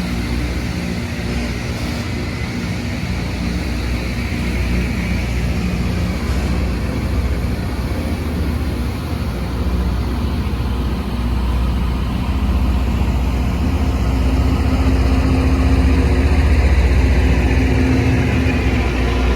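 Rail grinder train at work: heavy diesel engines running under a steady grinding hiss of the grinding stones on the rail, growing louder over the last several seconds.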